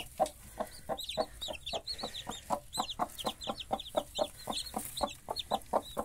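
Broody mother hen clucking rapidly and steadily, about five short clucks a second, agitated and guarding her newly hatched chicks, while the chicks peep in high, repeated chirps.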